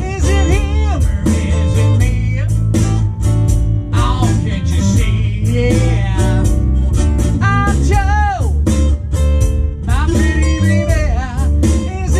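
Blues song played on a cigar box guitar and a bass guitar over a steady beat, with singing.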